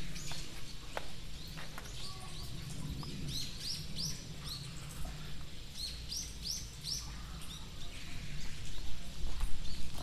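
Small birds chirping: short, high, arching chirps repeated in quick runs, busiest in the middle, over a low steady rumble.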